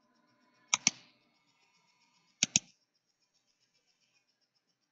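Computer mouse buttons clicking: two quick double clicks, about a second and a half apart.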